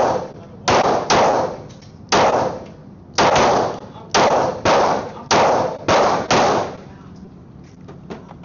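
Glock 23 Gen 3 pistol firing .40 S&W rounds at an uneven pace: about ten shots in six and a half seconds, each with an echoing tail, then firing stops.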